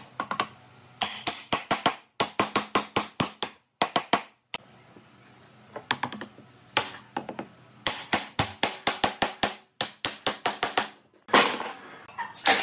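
Wooden mallet knocking a joint of a wooden chair frame together, in quick runs of sharp knocks about four or five a second with short pauses between runs. A louder clatter comes about a second before the end.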